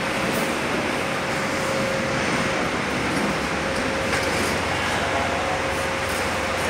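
Steady machine noise, an even rush with a faint steady whine and a low hum underneath.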